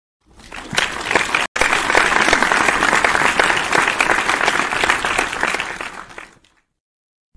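A crowd clapping their hands in applause, swelling in over the first second, with a brief gap about one and a half seconds in, then fading out about six seconds in.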